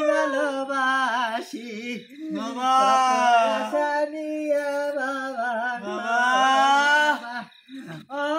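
A high-pitched voice sounding long, drawn-out notes that bend and waver in pitch, several in a row with short breaks between them.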